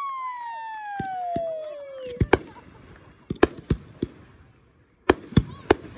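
Aerial fireworks going off: a long falling tone fades out over the first two seconds, then a string of sharp bangs and crackling pops follows, some in quick pairs.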